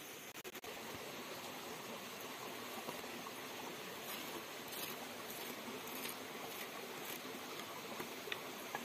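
Hot cooking oil sizzling steadily in a frying pan, with faint crackles, briefly cutting out about half a second in.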